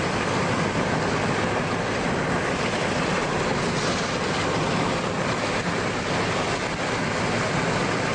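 Steady, loud rushing roar of strong wind and a moving car's road noise, with no breaks or distinct hits, close to a tornado.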